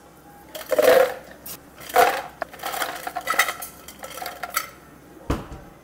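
Ice cubes tipped into a plastic blender jar, crashing in loudly twice and then rattling and clicking as they settle, followed by a single dull thump near the end.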